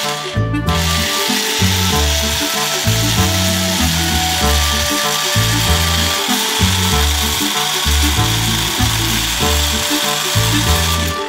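Toy chainsaw's small battery motor running steadily, a continuous whirring, over background music with a steady bass line; the motor stops at the very end.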